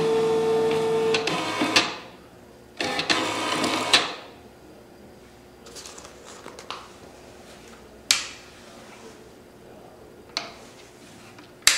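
TSC TTP-247 thermal transfer label printer printing its self-test label: the label stock feeds through in two mechanical runs, the first about two seconds long with a steady whine at its start, the second about a second long. A few sharp clicks follow near the end.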